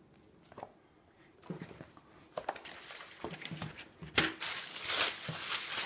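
Handling noise: coloring books and supplies knocking lightly as they are set down on a wooden table, a sharp knock about four seconds in, then tissue paper in the box rustling.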